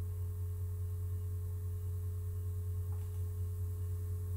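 A steady low hum with a fainter, higher steady tone above it, unchanging throughout; no speech.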